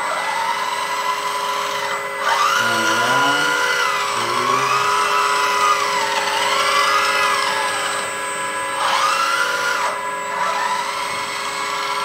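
LESU Komatsu PC360 1/14 RC hydraulic excavator's electric hydraulic pump running under load, its whine rising and falling in pitch as the upper structure is slewed around. The whine dips briefly about two seconds in and again near ten seconds.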